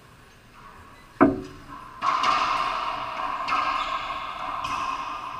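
Racquetball rally: one sharp, loud crack of racquet on ball about a second in, then further hits that ring on in the echo of the enclosed court.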